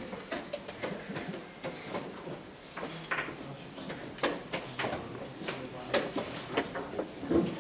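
Scattered light clicks and knocks of wooden chess pieces and clock buttons, with a piece set down on the board about six seconds in.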